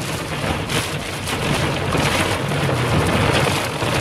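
Heavy squall rain hitting a car's windshield and roof, heard from inside the cabin as a loud, dense rush, with the car's low road noise underneath.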